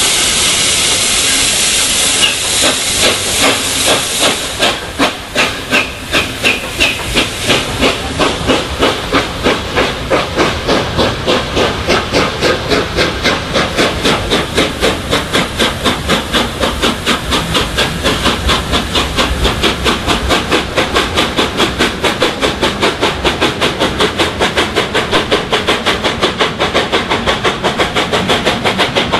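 LNER A4 Pacific steam locomotive No. 4464 Bittern, a three-cylinder engine, pulling away with its train. Steam hisses steadily at first, then the exhaust beats start about two seconds in and quicken as it gathers speed.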